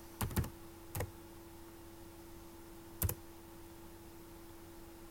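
Four separate computer keyboard keystrokes, letters typed one at a time: two close together at the start, one about a second in and one about three seconds in, over a faint steady hum.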